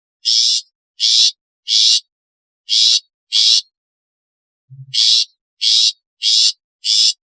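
Long-tailed shrike (cendet) giving a series of short, harsh rasping calls, about nine in all, in quick pairs and threes with a pause about halfway through.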